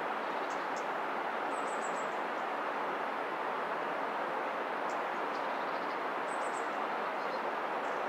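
Steady rushing of a river's flowing water, without change in level, with a couple of faint, high bird chirps.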